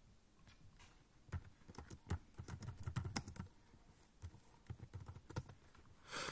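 Typing on a computer keyboard: an irregular run of key clicks, densest about two to three and a half seconds in. A brief louder rush of noise comes near the end.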